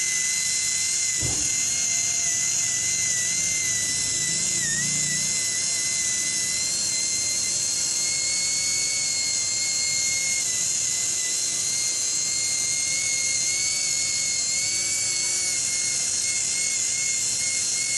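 High-speed right-angle rotary handpiece spinning while polishing a steel mold cavity: a steady high-pitched whine with a hiss, its pitch sagging slightly a few times.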